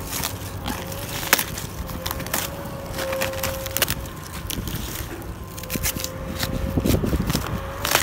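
Napa cabbage leaves being torn and snapped off the head by hand: crisp cracks and crackling rustle of leaves, with a few sharp snaps.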